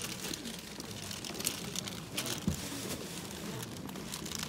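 Handling noise of rustling and crackling, with a soft knock about two and a half seconds in, as a porcelain plate is picked up and turned over.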